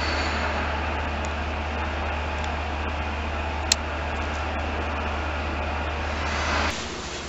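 Steady running noise heard from inside a rail vehicle: an even rumble with a low hum beneath it, and one sharp click about three and a half seconds in. The sound drops away abruptly near the end.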